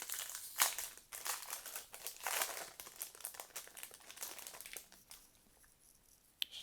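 Trading cards and their foil pack wrapper being handled, with crinkling and rustling in quick irregular strokes that die down about five seconds in, and a single sharp click near the end.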